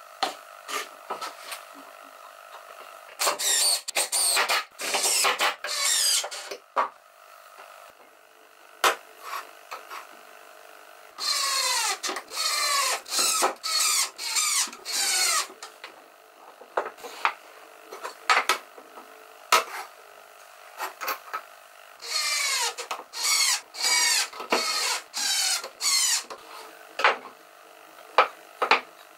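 Cordless impact driver driving screws through steel hinge plates into pine, in three runs of short trigger bursts, each burst falling in pitch as it stops. Single knocks of wood and tools being handled fall between the runs.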